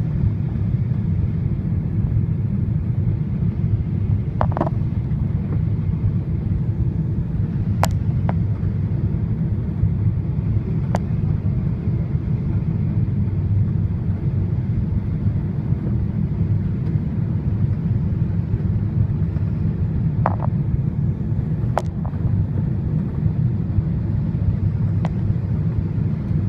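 Steady low rumble inside a jet airliner's cabin in flight, from the engines and the air rushing past, with a few faint ticks now and then.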